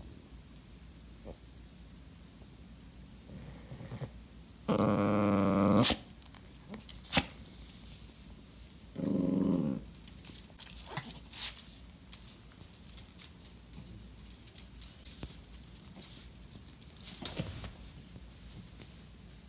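Dachshund giving two drawn-out low vocal calls to demand attention, the first over a second long about five seconds in, the second shorter about four seconds later. After them come light clicks of claws on a wooden floor and a scuffle near the end as the dog climbs onto the couch.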